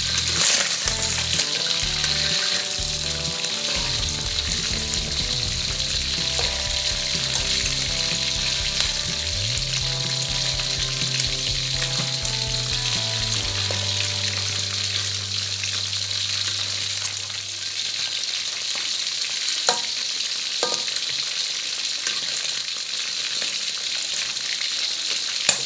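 Chicken pieces deep-frying in hot oil in a metal wok, a steady sizzle, while a slotted spoon and spatula turn the pieces over. Two sharp clicks about a second apart come about three-quarters of the way through.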